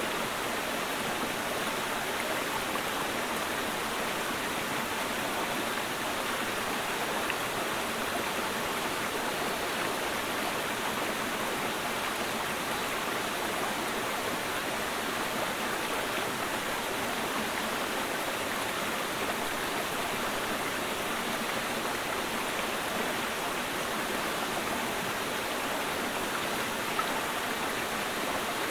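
Mountain stream water rushing steadily, an even, unbroken sound with no changes.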